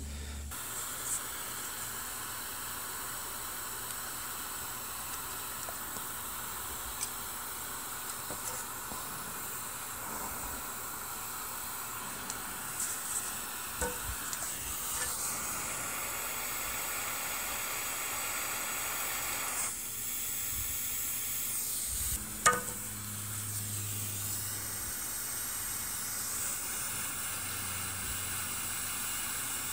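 Steady hiss with faint scattered ticks and small taps while diode leads are soldered onto a keyboard circuit board, and one sharper click about two-thirds of the way through.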